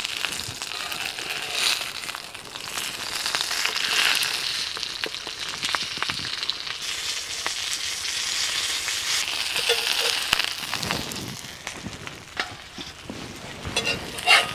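Banana-leaf-wrapped pomfret parcels sizzling in oil on a flat griddle pan, with occasional clicks and scrapes of a metal spatula as they are turned. The sizzle eases off near the end.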